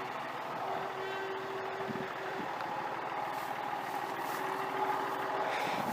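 An engine running steadily at a distance, with a steady hum that breaks off and comes back a few times.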